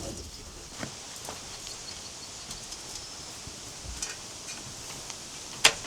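Outdoor farmyard ambience with faint bird chirps and a few light clicks, then one sharp click or knock near the end.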